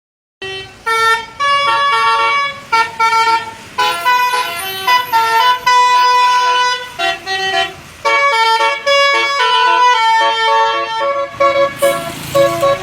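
Tour bus 'telolet basuri' multi-trumpet air horn playing a tune: held notes sounding together as chords and stepping from pitch to pitch, with a short rush of noise near the end.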